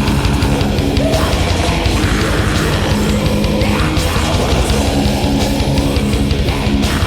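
Black metal demo recording: distorted electric guitars, bass and drums playing a dense, loud passage.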